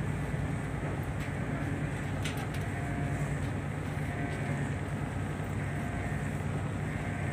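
Steady low diesel engine drone over background noise.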